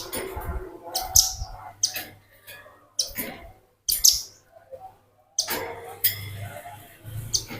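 Velvet-fronted nuthatch calling repeatedly: sharp, high chirps in quick bursts roughly once a second, over a low steady hum.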